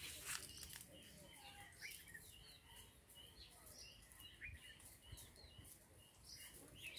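Faint small-bird chirps: a string of short, high notes repeated every half second or so over quiet outdoor ambience.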